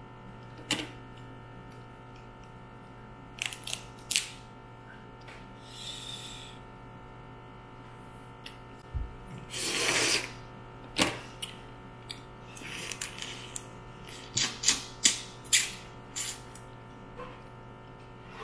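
Eating and picking apart a mud crab: scattered sharp clicks and cracks of crab shell being handled and broken, with a louder noisy sound lasting about a second roughly ten seconds in, over a low steady hum.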